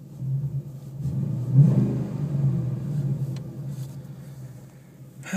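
2013 Ford Mustang GT's 5.0-litre V8 heard from inside the cabin with the windows closed: idling, with a light rev about a second and a half in that swells and then settles back over the next few seconds.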